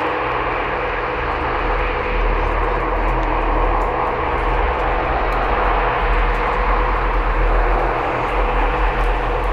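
Steady, loud rushing noise with a low rumble and a faint steady hum running through it; the rumble gets stronger about two seconds in.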